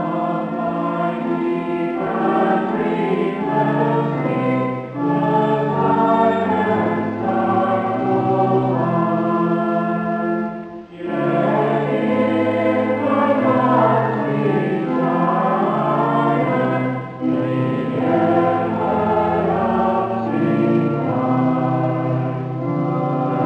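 Choir singing in a church, held notes in long phrases, with brief breaks between phrases about eleven and seventeen seconds in.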